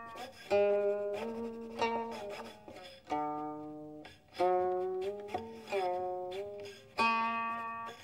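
Guqin (seven-string Chinese zither) played solo: a new plucked note about every second, each ringing and fading away, with several notes sliding up or down in pitch after the pluck.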